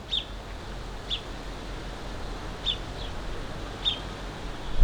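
A bird calling with short, high chirps, four of them about a second apart, over a steady low outdoor background hum.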